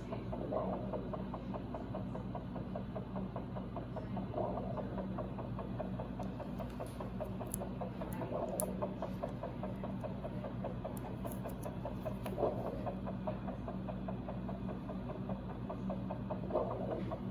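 Steady equipment hum with a fast, even throbbing pulse that swells about every four seconds.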